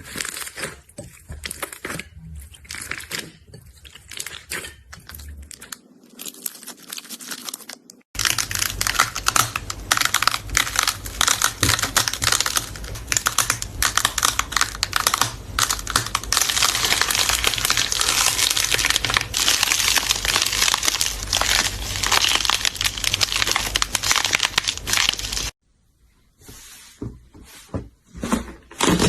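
Slime being squeezed and stretched by hand, making sticky crackling and popping. The crackles are sparse at first, then about eight seconds in they become a dense, louder run that cuts off suddenly near the end, followed by a few scattered pops.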